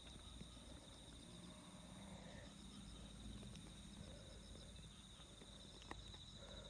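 Faint, steady chirring of night insects: a continuous high trill. A single light click comes near the end.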